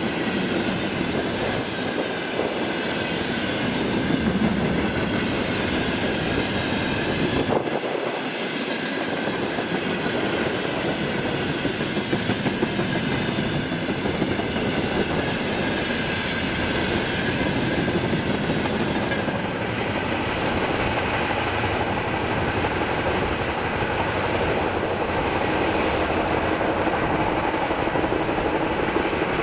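A freight train of tank wagons rolling past at speed, with a steady rumble and the clickety-clack of wheels over the rail joints.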